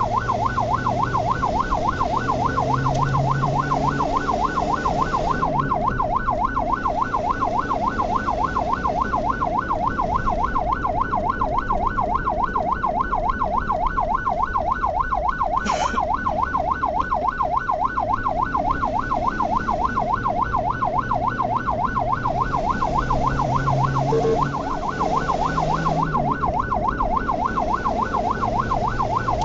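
Ambulance's electronic siren in fast yelp mode, its pitch sweeping rapidly up and down about three times a second without a break, over steady engine and road noise. A single sharp click about halfway through.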